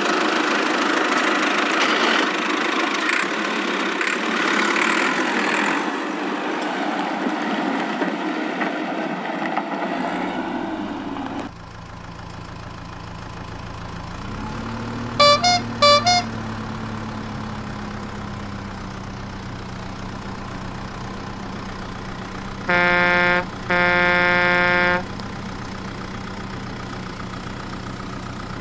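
Cartoon vehicle sound effects. A loud, noisy mechanical din cuts off sharply about eleven seconds in. Then an engine starts, its pitch rising and settling into an idle, two quick high beeps sound, and a horn honks twice, the second honk longer.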